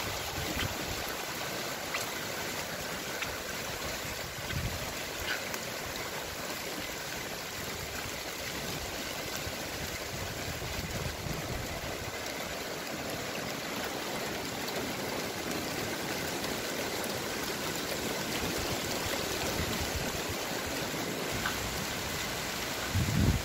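Steady rain falling on garden foliage: an even hiss with a few faint ticks.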